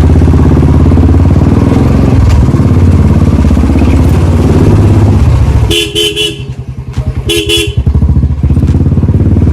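Motorcycle engine running loud and close, easing off about six seconds in. A horn beeps twice in short toots, about a second and a half apart.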